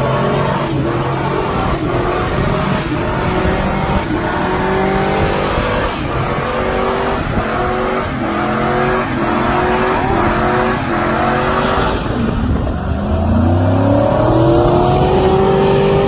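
GMC pickup's engine revving hard in a stationary burnout, its rear tyres spinning and squealing on the pavement. The revs rise and fall over and over, then climb in one long sweep near the end.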